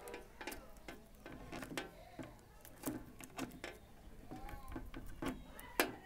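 Irregular clicks and taps from an analog multimeter and its test leads being handled, with probe tips and lead plugs knocking on the meter's plastic case; the sharpest click comes near the end.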